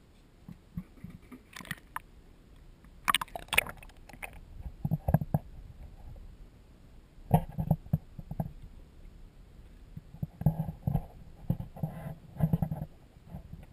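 Irregular muffled knocks and thumps on a GoPro's waterproof housing as it goes into and is held under the lake water. There are a few sharper clicks about three to four seconds in, and clusters of low bumps after that.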